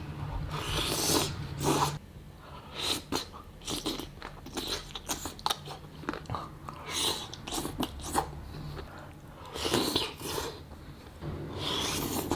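Close-up eating sounds: chicken feet in Thai sauce being bitten and chewed, with irregular crunches, clicks and wet bursts.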